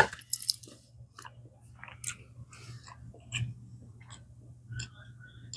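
A person chewing a mouthful of food close to the microphone: irregular small wet clicks and crunches, a little louder in the first half-second, over a faint steady low hum.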